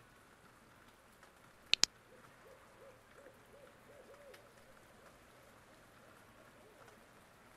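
Two sharp clicks in quick succession, followed by faint wavering hoot-like tones.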